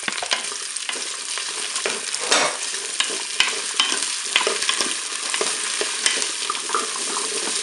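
Chopped carrots and potatoes sizzling in hot oil in a Cookeo multicooker's bowl on its browning setting, tipped in at the start and stirred with a wooden spoon. A steady sizzle runs under frequent clicks and scrapes of the spoon and vegetables against the bowl.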